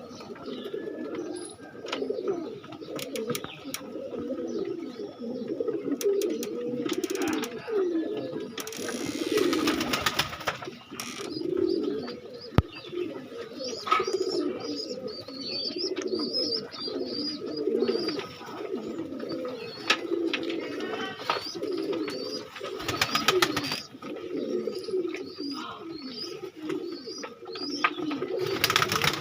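Domestic pigeons cooing over and over, with faint high chirps above and a few short rustling noises.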